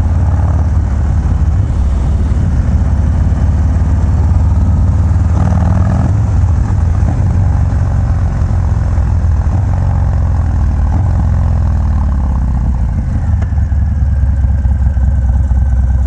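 Harley-Davidson FXDR's V-twin engine, enlarged to 117 cubic inches, running loud through a Bassani Road Rage exhaust under way. The engine note falls away over the last few seconds as the bike slows.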